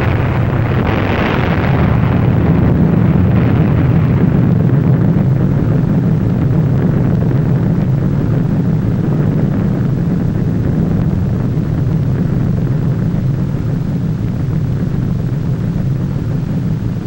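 Atomic bomb airburst: a loud, deep, steady rumble. Its brighter hiss dies away over the first few seconds while the low rumble holds on.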